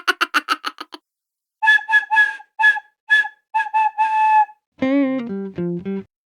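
A string of short comic sound effects. First a fast rattle of clicks that stops about a second in, then about nine short whistle-like toots, then a few buzzy horn-like notes that step down in pitch.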